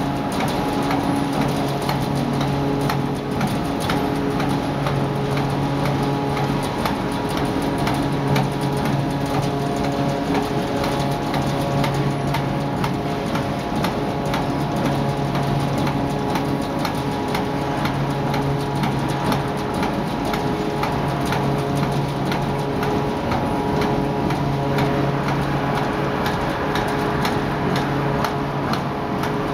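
Bar forging machine running: a steady machine hum under a dense, rapid stream of clicking strikes.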